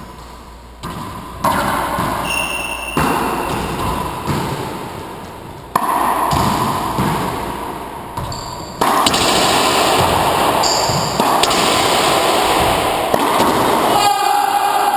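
Racquetball doubles rally in an enclosed court: repeated knocks of the ball against the walls and floor, with short squeaks of sneakers on the hardwood, all echoing; the din grows louder about nine seconds in.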